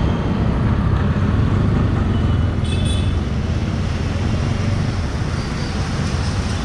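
Street traffic of motor scooters, motorcycles and auto-rickshaws running past, a steady engine rumble, with a brief high tone a little under three seconds in.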